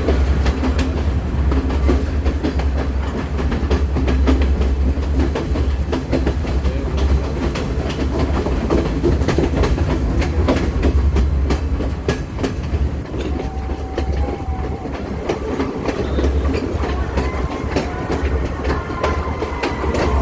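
Train running on rails: a steady heavy rumble with the rapid clicking of wheels over the track throughout. A faint thin squeal of the wheels comes in over the last several seconds.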